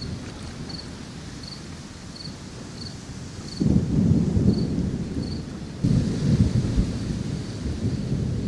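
Thunder from a severe thunderstorm over steady rain: a heavy low rumble breaks in suddenly about three and a half seconds in, and a second one near six seconds.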